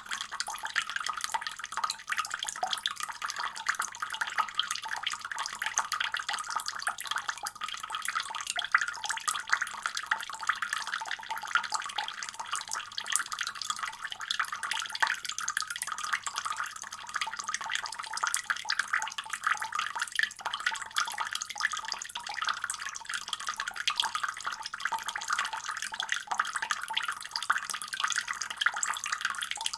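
Water running steadily from a faucet, the stream splashing with a constant fine spatter of drops.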